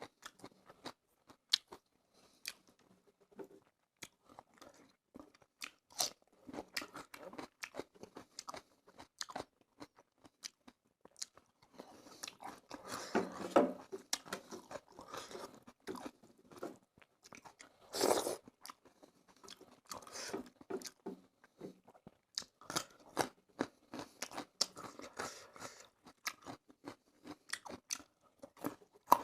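A person chewing and crunching a meal of fish curry and rice, with many sharp mouth clicks and bites. There are a few louder, denser stretches of eating about halfway through.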